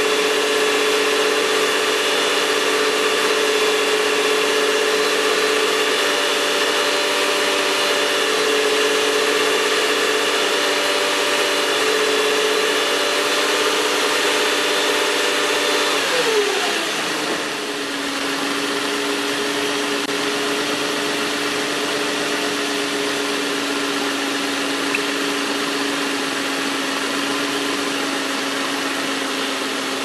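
A 2004 Nissan Quest's 3.5-litre VQ35 V6 engine runs steadily at raised revs, then drops back to idle a little past halfway, its pitch falling as it slows. The engine is being revved to warm it up while air is bled from the freshly refilled cooling system.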